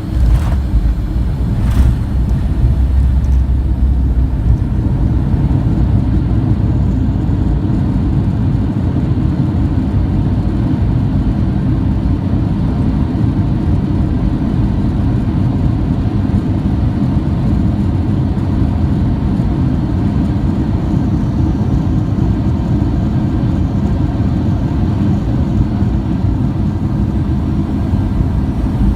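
Steady low rumble of an airliner heard from inside the cabin, with a couple of short knocks near the start.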